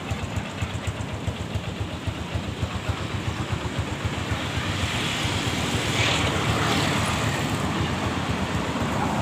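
Motorcycle engine running under way, a rapid low pulsing, with wind noise on the microphone; it grows a little louder in the second half.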